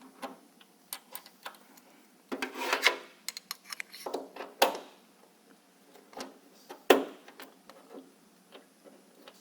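Parts being handled and fitted together by hand: scattered clicks and knocks, a scraping rub about two and a half seconds in, and two sharper knocks, one near the middle and one about seven seconds in.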